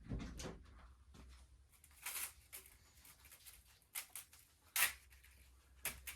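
Irregular rustling and light clicks of engine parts and their packaging being handled, with sharper ones about two, four and five seconds in.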